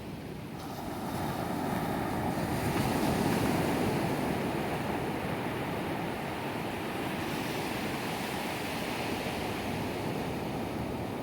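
Ocean surf washing onto a beach, a steady rushing that swells over the first few seconds, with some wind on the microphone.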